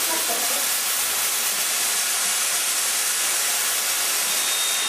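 Concept security smoke-screen generator discharging dense fog: a loud, steady hiss of the jet, with a thin high whistle joining near the end.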